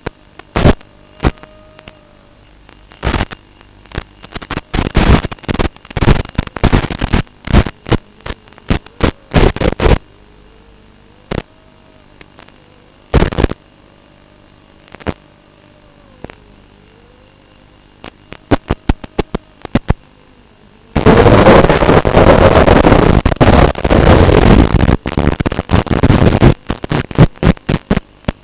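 Crackling bursts of radio static from a weak analog FPV video link recorded through goggles, with a long unbroken stretch of static about three quarters of the way through. The breakup comes from mismatched antenna polarisation: right-hand on the goggles, left-hand on the quadcopter.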